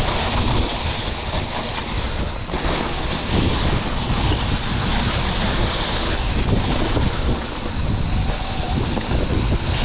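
Mountain bike descending a muddy downhill singletrack at speed: loud, steady wind rushing over the camera microphone, with the bike and tyres rattling over the rough, wet ground.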